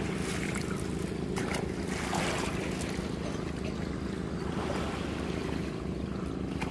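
Engine running steadily with an even, low hum, and some wind on the microphone.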